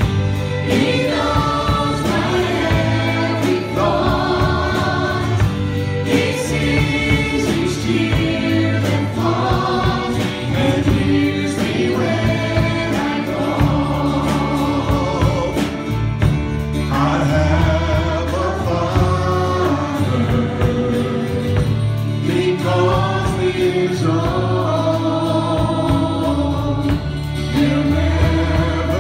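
Live gospel worship song: a group of singers, women and a man, sing together into microphones, backed by electric guitar and drums.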